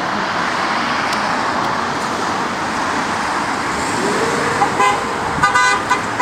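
Road traffic passing steadily, then a car horn: one short toot about five seconds in, followed by a few quick toots near the end.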